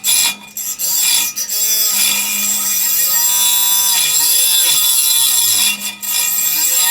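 A power tool cutting into the scooter frame with a high, steady whine. Its pitch repeatedly sags and recovers as the blade bites and is eased off.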